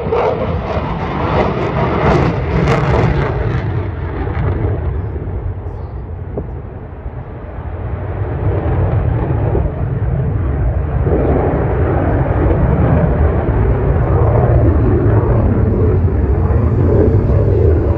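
F-16 fighter jet's engine noise as the jet passes and climbs away. It is loud and broad at first, eases off about six seconds in, then builds again into a steady low rumble.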